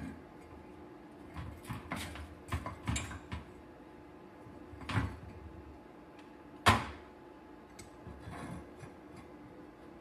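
Clinks and knocks of steel tongs, a metal ingot mold and a freshly cast brass ingot being tipped out and handled on a firebrick and metal pan: a run of taps in the first few seconds, a knock about five seconds in, and the loudest single clunk about two-thirds of the way through.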